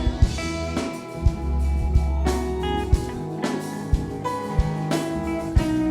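Live band playing an instrumental passage between sung lines: electric guitar, bass, and drum kit keeping a steady beat.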